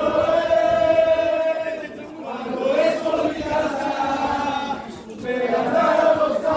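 A group of football supporters chanting together in unison, in three long sung phrases, one after another.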